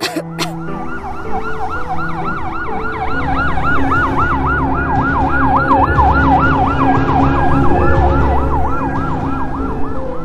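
Siren yelping rapidly, rising and falling about four times a second, over music with held notes and a steady bass. The siren stops near the end, and a sharp click comes at the very start.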